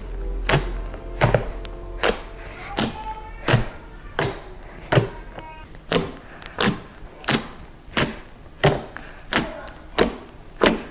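Fingers poking and pressing into a mound of shaving-cream fluffy slime on a wooden table, making evenly spaced soft taps about every 0.7 seconds.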